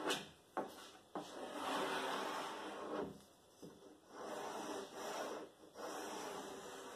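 Wooden block rubbed hard back and forth along PVC edge banding on a melamine board edge, pressing the glued banding down so it bonds: a few long rubbing strokes with short pauses between them, and two short knocks about a second in.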